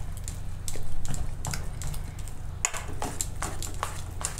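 Metal spoon stirring thick wheat-flour and semolina batter in a stainless steel bowl: irregular clicks of the spoon against the steel and wet squelches of the batter, over a steady low hum.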